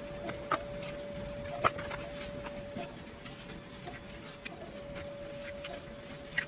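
A small hand garden tool raking and digging through loose compost in a raised bed, with a few sharp clicks, over a steady faint high hum.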